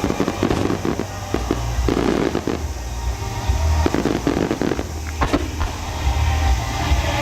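Aerial fireworks bursting and crackling in rapid clusters over loud music played for the show.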